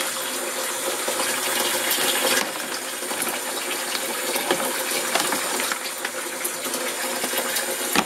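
Water running steadily into the wash tub of a Panda B45 twin-tub portable washing machine, filling it for the rinse cycle. Faint knocks come from the wet load in the spin basket being rearranged by hand after an unbalanced spin.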